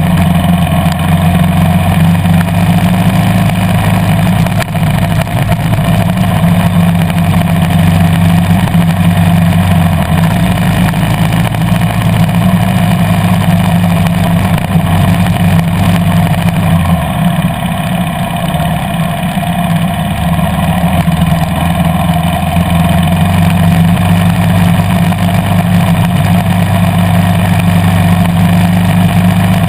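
KTM 350 EXC-F dirt bike's single-cylinder four-stroke engine running steadily as the bike is ridden, heard from on board. Its pitch shifts slightly about ten seconds in and again around seventeen seconds.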